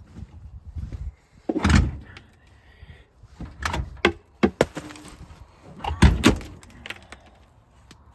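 A series of knocks and clanks from tools and parts being handled while working on a car. The two heaviest thumps come about a second and a half in and again about six seconds in, with a quick run of lighter clicks between them.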